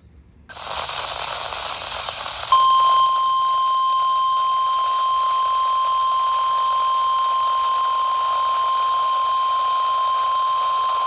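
Weather radio receiver hissing with static. About two and a half seconds in, the NOAA Weather Radio 1050 Hz warning alarm tone starts: a single steady high tone held over the static. It marks the start of a warning broadcast.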